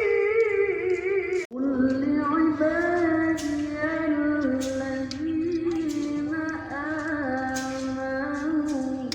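Singing voice holding long, slightly wavering notes; it breaks off abruptly about one and a half seconds in and resumes on a lower note, moving slowly between a few pitches.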